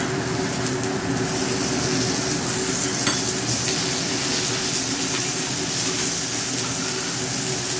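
Food frying with a steady sizzle, a low steady hum underneath, and a single click about three seconds in.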